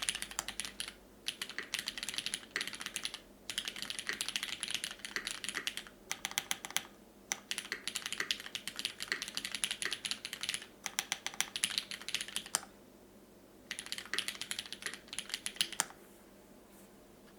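Typing on an AL.BOK custom mechanical keyboard: lubed and filmed retooled Cherry MX Black linear switches in a top-mounted brass plate, with GMK keycaps. The keystrokes come in fast runs broken by short pauses, with a longer pause past the middle, and the typing stops a little before the end.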